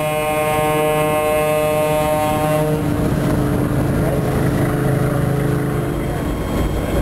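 A tugboat's horn sounding a long, chord-like blast that cuts off suddenly between two and three seconds in, over the steady low rumble of a boat's engine and water. A fainter, lower horn tone carries on until about six seconds in.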